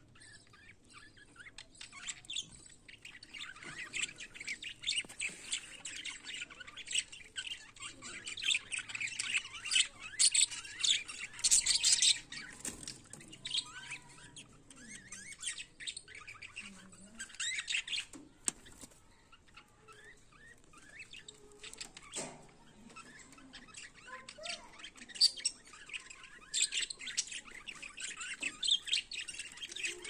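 A flock of budgerigars chattering: a dense, overlapping stream of short chirps and squawks. It is loudest in the middle and again near the end, with a quieter stretch about two-thirds of the way through.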